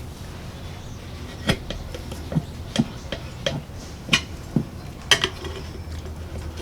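Screwdrivers clinking against a steel lawn-tractor wheel rim as they lever a new tire's bead over the rim edge a little at a time. About eight sharp clinks, irregularly spaced.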